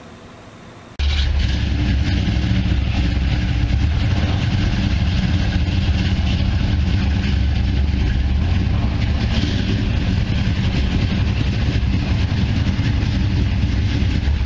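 1965 Mercury Comet's engine, not the stock 289 cubic-inch motor, idling loudly and steadily; it cuts in suddenly about a second in.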